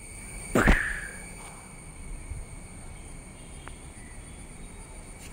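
A single loud, sharp hit about half a second in, followed by a steady outdoor background of insects chirping.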